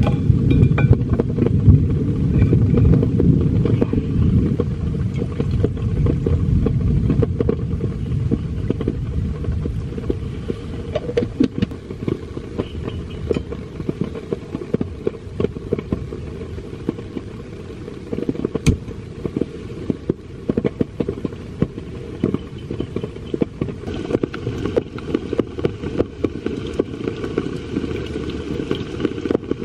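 Heavy rain drumming on a tent's fabric, heard from inside as a steady low rumble with many scattered sharp drop taps.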